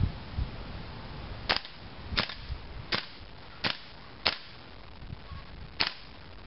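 AGM M4 RIS gas blowback airsoft rifle firing six single shots in semi-auto, each a sharp report of gas and bolt blowback. They come about every two-thirds of a second, with a longer pause before the last.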